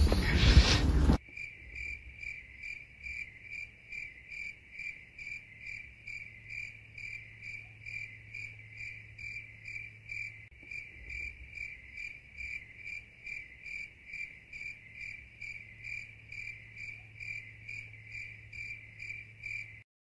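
Cricket chirping sound effect: an even pulse of about two chirps a second over a faint low hum, starting after a second of loud voice and stopping just before the end. It cannot be live crickets in a snow-covered winter night, so it is an added track.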